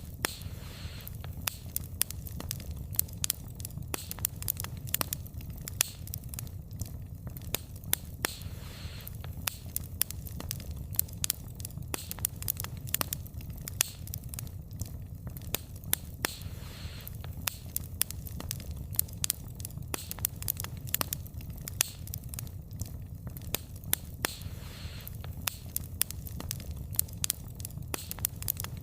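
Wood fire burning, with frequent sharp crackles and pops from the logs over a steady low rumble of flame. A soft hiss swells briefly about every eight seconds.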